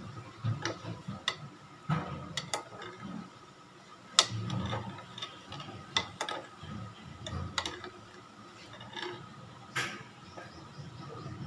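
Metal ladle stirring soup in a stainless-steel pot, clinking and knocking against the pot's side in irregular sharp clicks, with low sloshing and handling noise between them.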